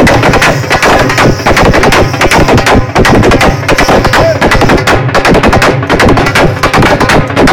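Loud, drum-heavy dance music with rapid beats, so loud that it overloads the phone microphone and distorts into a harsh crackle.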